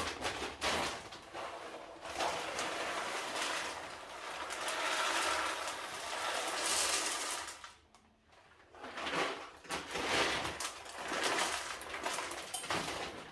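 Household handling noises: irregular knocks, clicks and rustling, with a short pause about eight seconds in.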